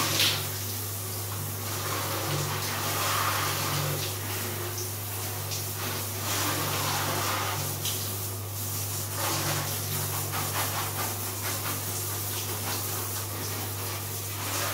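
Water spraying from a handheld shower hose onto a small dog and the tiled floor: a steady hiss, with a steady low hum underneath.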